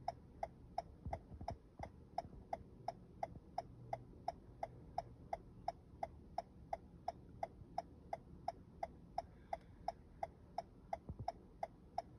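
2023 Toyota Camry's hazard warning flasher clicking steadily, an even tick-tock of about three clicks a second.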